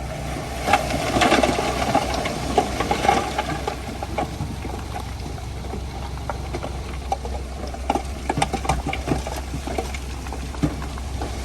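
Diesel engine of heavy earthmoving equipment running steadily at a low pitch, with scattered sharp cracks and clanks in the first few seconds and again in the second half.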